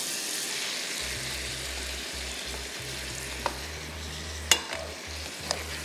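Chicken frying in a pan with a creamy mixture just added, sizzling steadily as it is stirred. A utensil clicks sharply against the pan three times, the loudest about four and a half seconds in.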